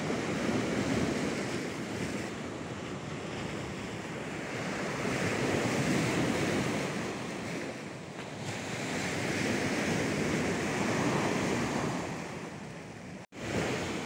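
Sea surf washing onto a sandy beach, the noise swelling and easing back as each wave comes in.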